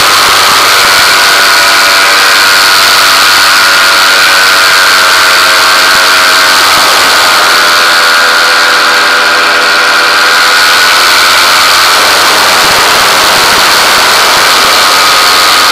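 Small engine running steadily at close range, with a high steady whine above it; the engine note shifts slightly in pitch about seven seconds in.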